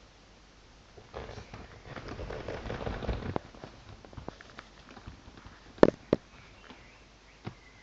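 Scuffling and rustling close to the microphone for a couple of seconds, then two sharp knocks in quick succession and a few lighter taps.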